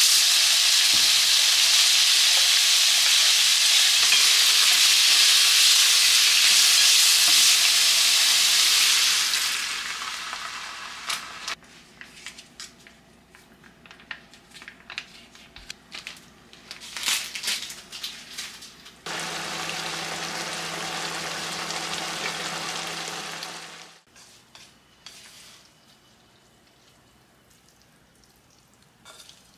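Thin-sliced beef sizzling loudly in hot oil in a pan while it is stirred with chopsticks, the sizzle dying away after about ten seconds. Then come quiet utensil clicks, a shorter second stretch of sizzling with a low hum, and light clinks near the end.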